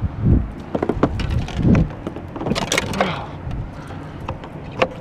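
Knocks, clicks and low thumps from people moving and handling gear in a small fishing boat, with a short noisy burst about two and a half seconds in.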